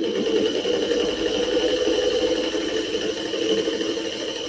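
Electric sewing machine running steadily at an even speed while stitching a long seam through strips of quilting cotton. It makes a constant hum with a thin high whine over it.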